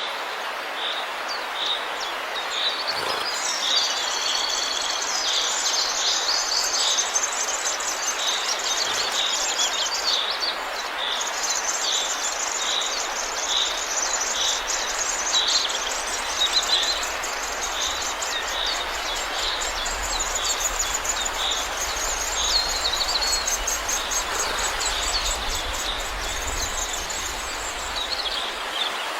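Nestling birds begging for food: a dense run of rapid, high-pitched chirps, over a row of shorter chirps repeated a little more than once a second and a steady hiss beneath.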